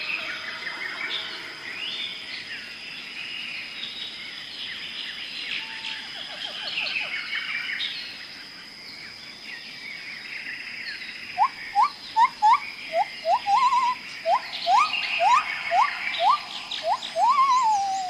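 A dense chorus of birds chattering and chirping, joined about eleven seconds in by a run of loud, quick rising whistled calls, about two a second, which are the loudest sound. A steady high-pitched tone runs underneath throughout.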